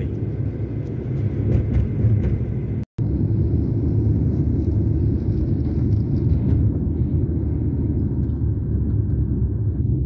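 Steady low rumble of a moving car's engine and tyres, heard from inside the cabin. It cuts out for an instant about three seconds in.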